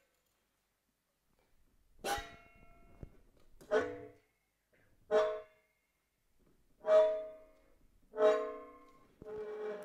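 Improvised found-object music: five separate short pitched notes, each starting sharply and dying away within about a second, spaced about a second and a half apart. A denser, continuous layer of sound comes in near the end.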